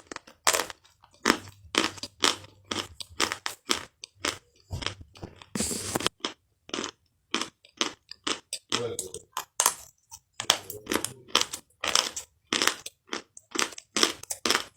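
Close-up crunching and chewing of something crisp: a quick, irregular run of sharp crunches, with one longer crackle about six seconds in.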